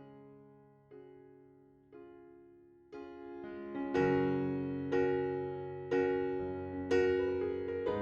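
Background piano music: slow chords struck about once a second, each dying away, growing louder and fuller about halfway through.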